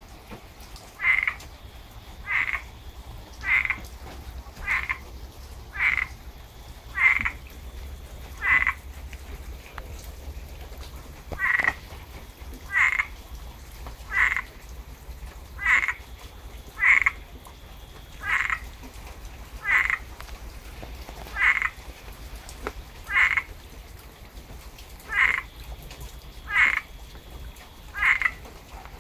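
A tree frog calling in the rain: short, evenly paced calls repeated about once every second and a half, with one pause of a few seconds partway through.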